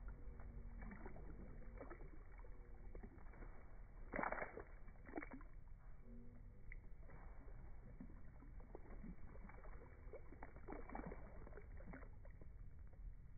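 Rubber wellington boots sloshing and splashing through a shallow puddle in slow, repeated steps, the sound slowed and lowered in pitch by slow-motion playback. The biggest splash comes about four seconds in.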